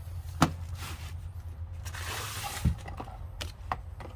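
Handling noise from a new set of thin metric wrenches and their packaging: a sharp click, a short rustle ending in a low knock, then a couple of small clicks, over a steady low hum.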